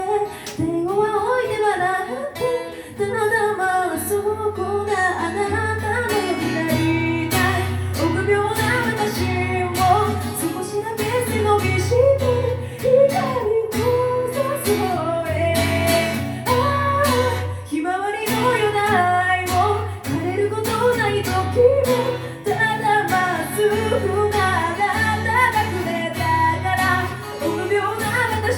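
Live performance of a Japanese pop song: singing over acoustic accompaniment with a steady bass line, the music running without a break.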